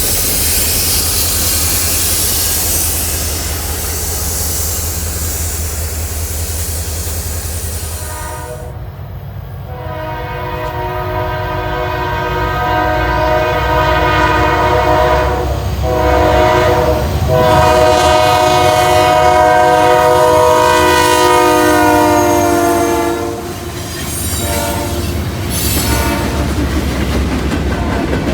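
Train running past with rumble and wheel clatter; about eight seconds in, a locomotive's multi-note air horn sounds two long blasts with a short break between them, then the train noise carries on.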